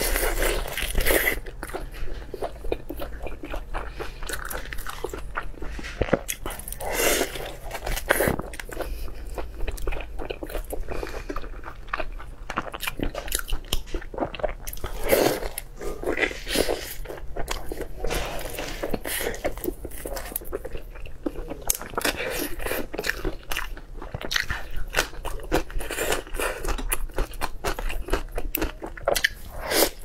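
A person biting into and chewing pieces of braised pork belly (hong shao rou), with many short, irregular eating sounds throughout.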